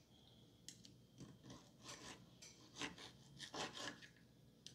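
Table knife sawing back and forth through a smoked pork steak on a wooden cutting board: a series of faint, short rasping strokes, the strongest in the last second or so.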